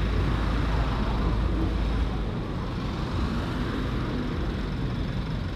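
Road traffic noise: an even hiss of engine and tyre noise from a passing vehicle, with a heavy low rumble that eases about two seconds in.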